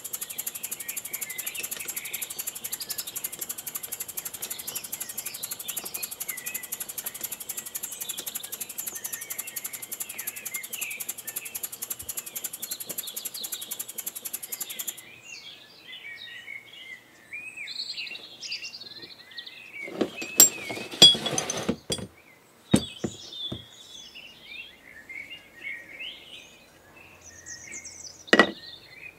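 Wig-Wag triple inline model engine running on compressed air, a fast, even ticking that cuts off suddenly about halfway through. Birds chirp throughout, and a few knocks and clatter come in the second half.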